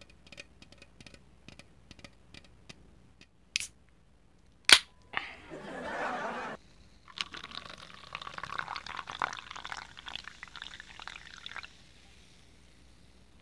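Aluminium can of sparkling lemon soda being opened: light clicks of fingers on the can, then a small click and the sharp pop of the pull-tab cracking open, followed by a short hiss of escaping gas. Several seconds of crackling carbonation fizz follow.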